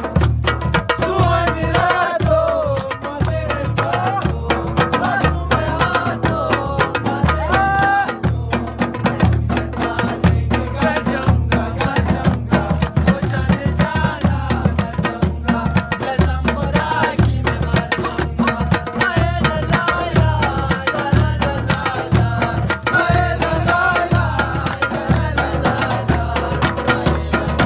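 Chitrali folk music played live: a barrel drum and a hand-held frame drum beat a steady dance rhythm, with hand clapping, under a wavering melody line that is strongest in the first ten seconds and again near the end.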